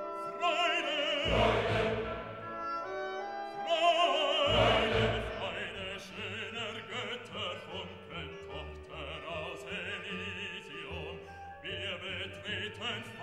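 Background music: a classical piece with an operatic voice singing over an orchestra, the voice wavering in wide vibrato.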